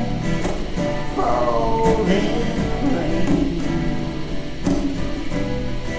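Blues music with guitar and a sung or held melodic line.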